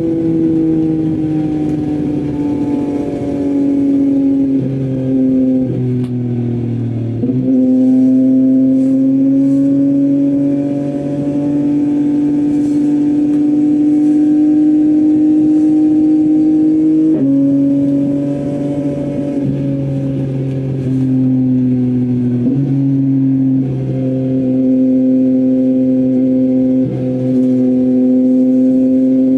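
Yamaha MT-09's inline three-cylinder engine running through an Akrapovic full-system exhaust while riding, engine pitch slowly rising and falling with several sudden steps from gear changes.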